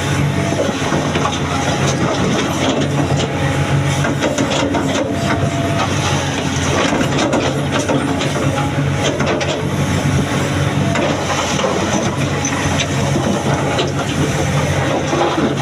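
Excavator's diesel engine running steadily under load, with frequent knocks and grinding of stone boulders being handled.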